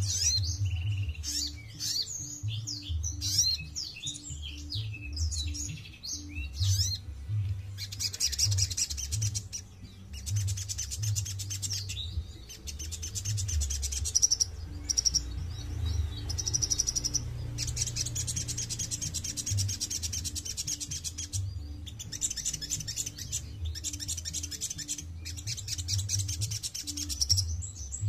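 Sogon sunbird singing: long runs of rapid, high-pitched trills and chirps, broken by short pauses every few seconds, over a faint low beat.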